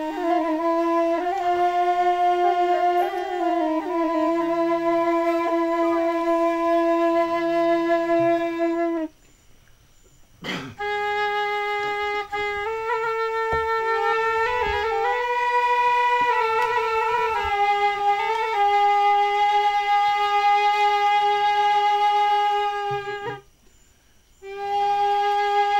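A flute-like wind instrument playing a slow melody of long held notes with small ornamented turns between them. It breaks off twice, for about a second each, about nine seconds in and near the end.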